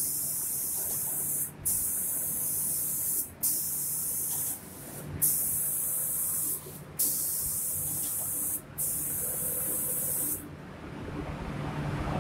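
Automatic spray gun of a cabinet-door painting machine spraying paint with a loud air hiss, in bursts of about a second and a half broken by brief stops. The spraying cuts off about ten seconds in, leaving a steadier, lower rushing noise.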